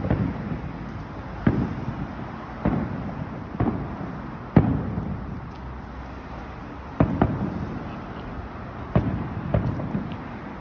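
Aerial fireworks shells bursting: about nine sharp booms at irregular intervals, each trailing off in a low rumble, the loudest about four and a half seconds in.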